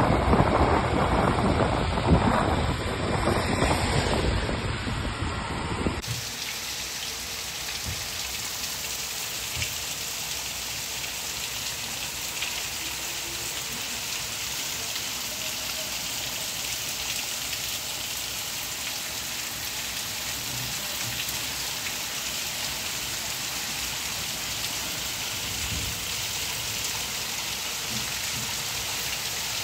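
Loud wind buffeting the microphone for about the first six seconds, then an abrupt cut to steady rain falling on a street and tiled roofs.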